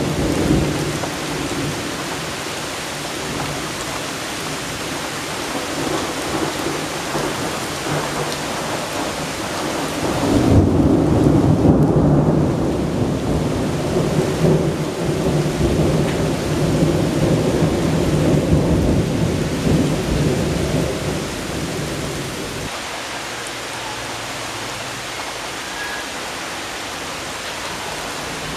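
Heavy rain falling steadily during a thunderstorm, with a low rumble of thunder swelling about ten seconds in and rolling on for several seconds before easing off.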